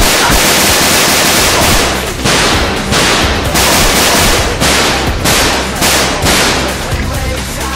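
Rapid automatic gunfire sound effect, loud and continuous, in several long bursts with short breaks, dying away about seven seconds in.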